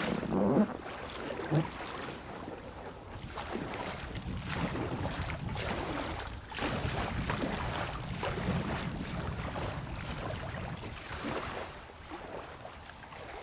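Paddle strokes splashing in river water as an inflatable packraft is paddled away from the shallows, with a few knocks and splashes in the first two seconds as it pushes off. The splashes come roughly once a second and grow quieter near the end, with wind on the microphone.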